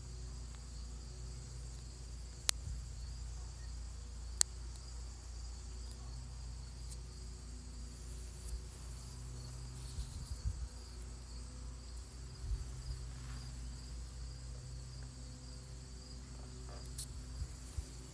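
Steady insect chorus, a continuous high trilling like crickets, with two sharp clicks close together a few seconds in.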